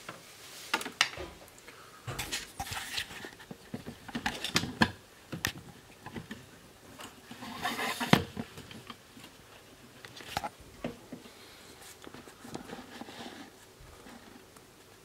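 Irregular clicks, taps and light scraping of hard plastic laptop parts being handled, with sharper clicks about five and a half and eight seconds in.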